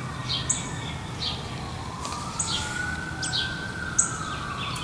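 A siren wailing slowly, its pitch sinking, rising and sinking again, while small birds chirp over it, short high chirps about once a second.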